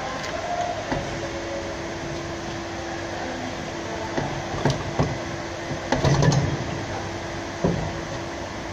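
Steady background hum with a few sharp metallic knocks and clinks from hands and tools working on the underside of a van's gearbox, the loudest cluster about six seconds in.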